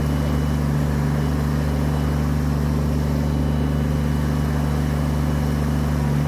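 Kubota BX tractor's small three-cylinder diesel engine running steadily, an even low drone with no revving.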